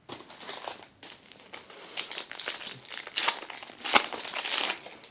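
Crinkling and tearing of a trading-card pack's wrapper as it is opened by hand, busier in the second half, with a sharp snap about four seconds in.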